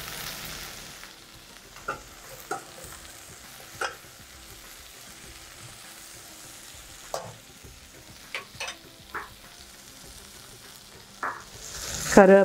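Vegetables frying in oil in a stainless steel pot, a low steady sizzle, while a steel ladle stirs them with scattered clinks and scrapes against the pot.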